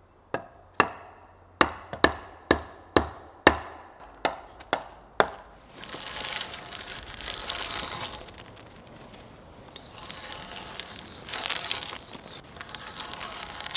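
About ten sharp wooden knocks, like blows on a log, over the first five seconds. They are followed by a drawknife stripping bark from a log in several long scraping strokes.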